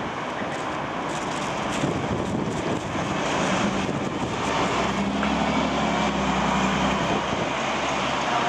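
City buses and cars driving past on a road, with a steady engine hum that grows louder about halfway through.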